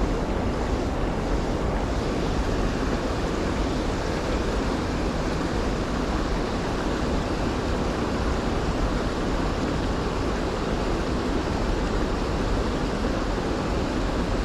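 Steady rushing of fast-flowing river water, with wind rumbling on the microphone.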